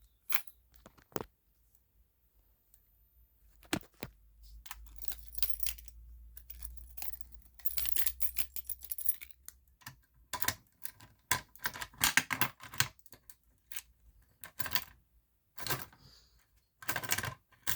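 Irregular plastic and metal clicks and rattles from a fire alarm pull station being worked by hand. It is mostly quiet for the first few seconds, then the clatter gets busier in the second half.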